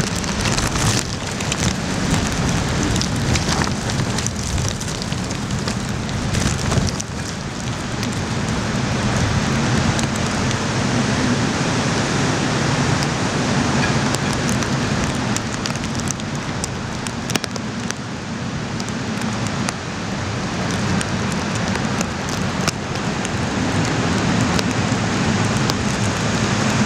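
Hurricane-force wind and driving rain, with the wind rumbling and buffeting on the microphone in gusts that rise and fall.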